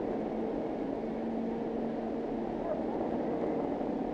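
Steady machinery drone from steelworks equipment as an electric steel furnace is tilted to pour, with a couple of held low hums coming and going; the sound is narrow and muffled, as on an old optical film soundtrack.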